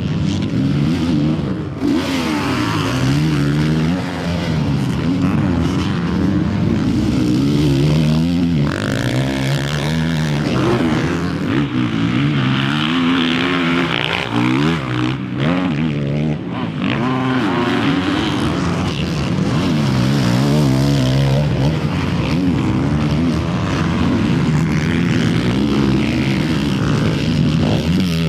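Four-stroke motocross bikes revving hard. The engine pitch climbs and drops again and again as the riders accelerate, shift and back off.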